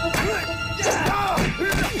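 Dramatic fight-scene soundtrack: background music under men's shouts and cries of effort, with a few sharp hit sounds.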